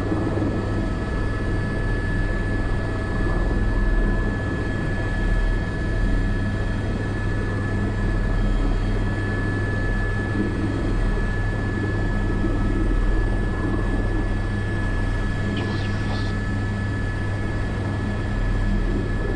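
Airbus AS350 B3 helicopter's Arriel 2 turboshaft engine and rotors running steadily in flight, heard from inside the cockpit as a continuous low rumble with a steady high whine.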